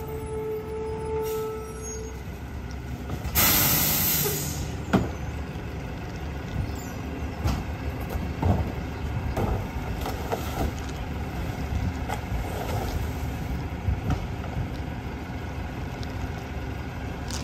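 Natural-gas McNeilus rear-loader garbage truck running steadily, with a loud hiss of released air about three seconds in. Throughout, there are scattered knocks and clunks as plastic barrels and branches are tipped against the hopper.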